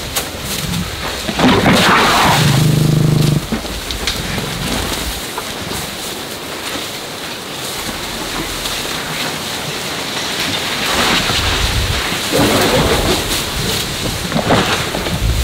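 Wind buffeting the microphone throughout. About a second and a half in, a loud animal call lasts roughly two seconds and cuts off abruptly.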